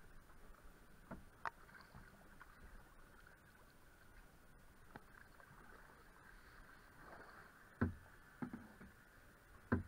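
A plastic canoe being paddled quietly on a slow river: faint paddle and water sounds with a few knocks, the loudest about eight seconds in and another near the end.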